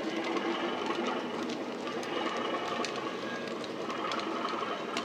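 A model diesel train running: loaded model freight wagons rolling past on the track, with occasional clicks from the wheels, over the steady diesel engine sound of a Class 37 sound decoder played through a small speaker in the locomotive.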